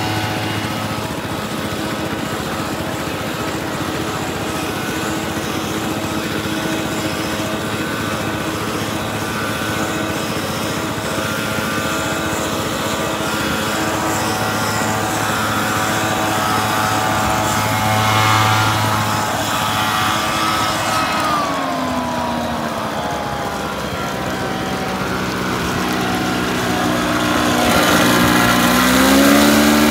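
Small two-stroke engine of a backpack rice-seed blower running steadily while broadcasting seed. Past the middle its speed drops, then near the end it revs back up.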